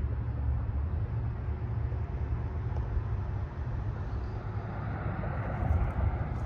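Wind buffeting the microphone outdoors, a steady but uneven low rumble.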